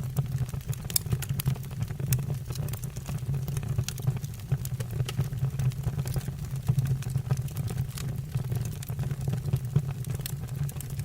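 Wood burning in a fireplace: a low, steady rumble under frequent, irregular sharp crackles and pops from the logs.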